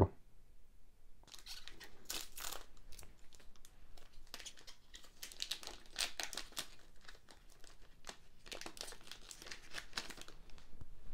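A trading card booster pack's plastic wrapper crinkling and tearing as it is opened and handled by hand, in several separate spells of crackling.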